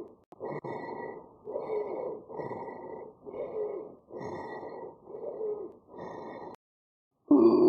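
Recorded abnormal lung sounds heard through a stethoscope: about seven breaths in a steady rhythm, each carrying a musical tone that falls in pitch. The recording stops near the end, and a louder sound with rising tones begins.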